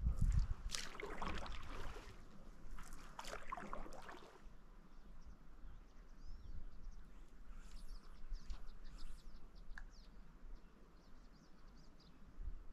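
Paddle strokes splashing in a shallow stream, several irregular dips over the first four seconds. After a cut, small birds chirp faintly over quiet outdoor background.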